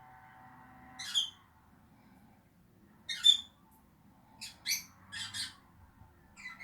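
Pet lovebirds giving short, shrill squawking calls, about six of them at uneven intervals, the loudest about three seconds in.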